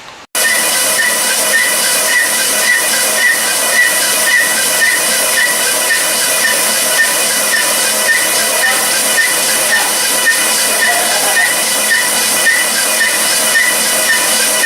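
A machine in an engine-rebuild shop running steadily: a loud, even hiss with a steady whine in it and a soft beat repeating about twice a second. It starts abruptly just after the beginning.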